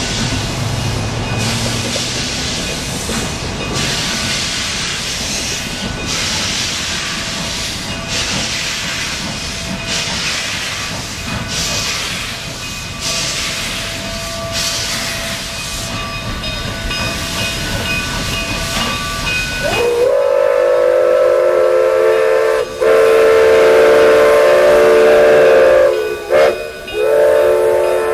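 Denver & Rio Grande Western K-28 narrow-gauge steam locomotive No. 478 starting off slowly: steam hissing with slow exhaust chuffs about one a second. About twenty seconds in, a loud steam whistle blows a chord of several notes in long blasts with a few short breaks.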